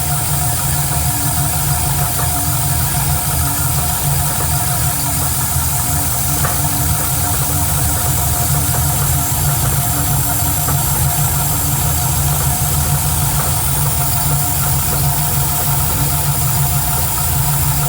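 Vehicle engine idling steadily, with a knocking noise that the owner questions.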